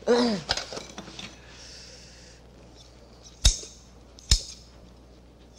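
Kitchen shears snipping through the knotted cheesecloth of a vegetable bundle: two sharp snaps a little under a second apart, about three and a half seconds in. A few light clicks come in the first second.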